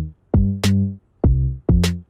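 Background music with an electronic beat: a deep bass line in short repeated notes, with a sharp drum hit about every second and a bit.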